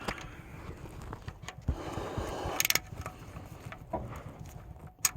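Scattered handling noises: rustling, light knocks and clicks, with a brief sharp scrape a little over two and a half seconds in and a few quick clicks near the end.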